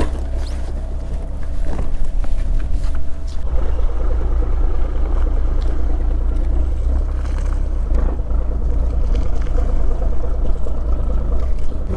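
Fishing boat's engine running close by, a steady low rumble with a faint hum over it; the sound changes abruptly about three and a half seconds in.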